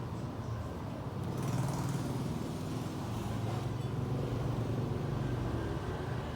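Steady low engine rumble of a motor vehicle, growing a little louder about a second in.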